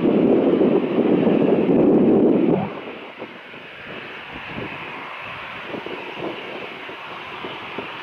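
Airbus A320 taxiing, its jet engines giving a steady whine. Heavy wind buffets the microphone with a loud rumble that drops away suddenly about two and a half seconds in.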